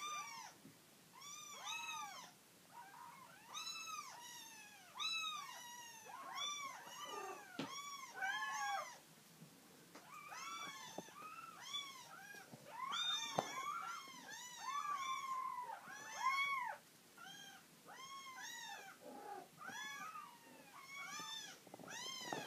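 Several three-week-old colourpoint kittens mewing over and over while being picked up and handled: short, high-pitched cries that rise and fall, one or two a second, sometimes overlapping.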